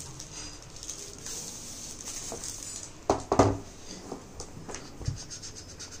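Clear plastic bag crinkling and rustling as a flat folder is slid out of it and handled, with scattered small clicks. A few louder bumps about three seconds in.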